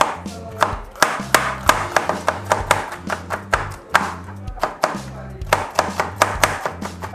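Chef's knife chopping a green bell pepper on a cutting board: quick, irregular knife strikes, about three a second, over background music with a steady bass line.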